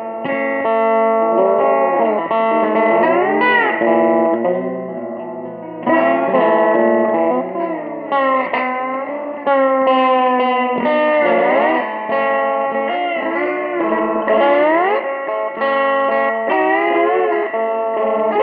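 Electric six-string guitar played with a slide in a slow blues, sustained notes gliding up and down in pitch between freshly picked notes.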